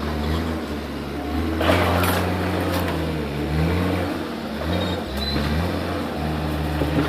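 JCB 3DX backhoe loader's diesel engine running, its pitch dipping and rising several times as the load changes, with a brief rush of noise about two seconds in.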